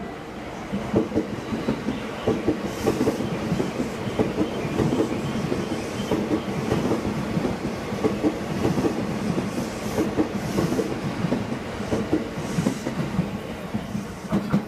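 JR East E259 series Narita Express electric train passing through a station without stopping. A steady rumble of wheels on rail, with repeated clacks as the wheels run over rail joints.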